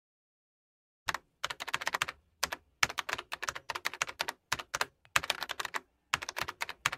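Rapid keyboard-typing clicks in about six quick runs with short gaps, starting about a second in: a typing sound effect as captions appear.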